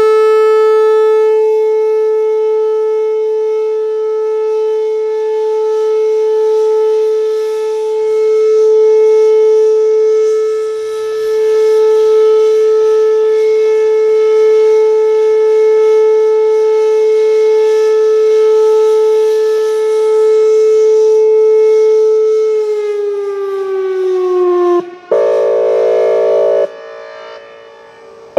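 Whelen Vortex R4 outdoor warning siren sounding its steady Alert tone, swelling and fading a little in loudness. About 22 seconds in, it winds down with a falling pitch. About 25 seconds in comes a short, harsh air-horn blast that stops abruptly, and a second blast starts at the very end.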